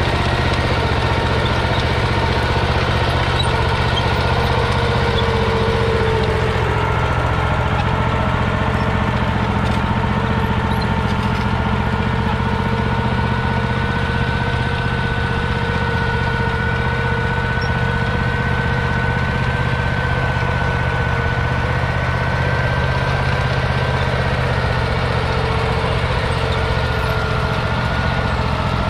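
1953 Ransomes MG6 crawler's 0.6-litre single-cylinder petrol engine running steadily under load, pulling a single-furrow trailed plough, with a steady high whine over the engine note.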